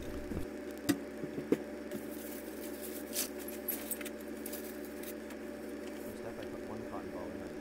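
Objects being handled on a wooden workbench: a few light knocks in the first couple of seconds, then the crinkling rustle of a plastic bag of cotton balls being opened and handled, over a steady low hum.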